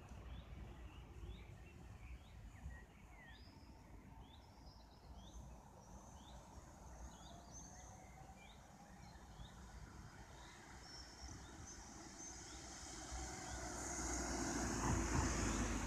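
A bird chirping repeatedly, short rising notes about twice a second, over a low steady rumble of road traffic. Near the end a car drives past close by, its engine and tyre noise swelling to the loudest sound.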